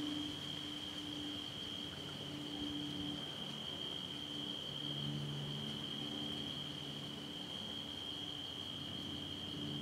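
Crickets trilling in a steady high night chorus, with a faint low hum that swells and fades beneath it.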